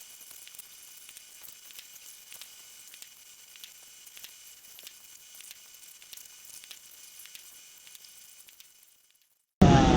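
Faint crackling hiss with many scattered ticks, cutting off to dead silence about a second before the end; loud fireworks bangs start right at the end.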